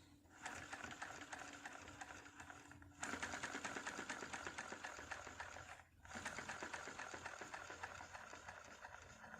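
Household sewing machine running, a rapid even ticking of its mechanism. It starts about half a second in, gets louder at about three seconds, stops briefly near six seconds and starts again.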